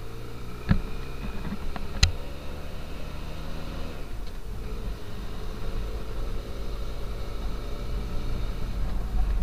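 Benelli TRK502's parallel-twin engine running on the move, its pitch shifting about four seconds in, with two sharp knocks early on and a low rumble growing louder toward the end.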